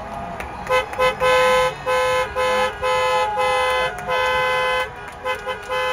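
A single car horn honking again and again, starting about a second in: two quick toots, then a run of longer blasts of about half a second each, and a few short toots near the end. It is celebratory New Year honking.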